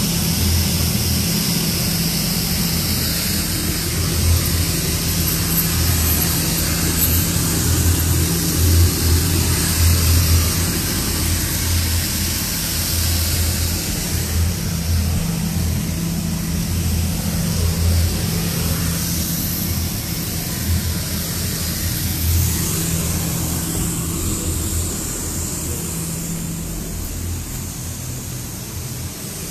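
Electric inflatable blower running steadily: a loud fan hum with a rush of air, the continuous airflow that holds an inflatable up. It grows a little quieter toward the end.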